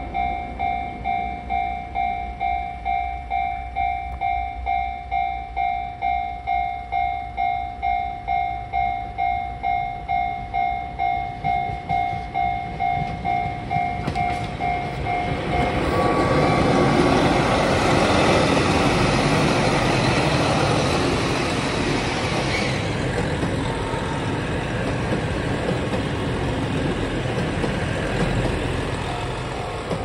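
A Japanese level-crossing bell rings in steady pulses, about two strokes a second. About halfway through, a JR Hokkaido KiHa 261 series diesel limited express comes over the crossing, and the rush of its engines and wheels swamps the bell. The bell is faintly heard again near the end as the train draws away.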